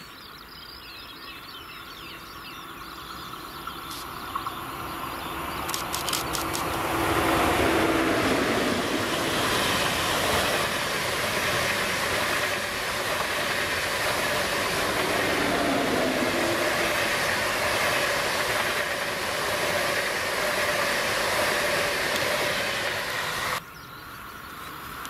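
ICE high-speed electric train approaching and passing close by at speed: a rush of wheels on rail and air that builds over the first seven seconds, with a few clicks as it nears, and stays loud while the long trainset goes past. Near the end the sound drops suddenly to the quieter, rising rush of a second ICE approaching.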